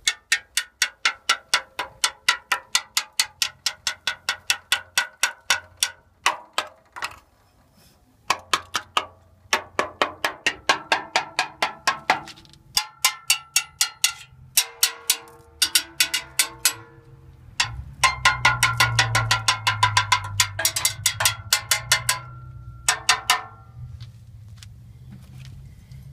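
A thin metal rod tapped rapidly on a rusty steel chassis rail, ringing metallic taps about five a second in runs with short pauses between. A low hum sits under the taps for several seconds past the middle.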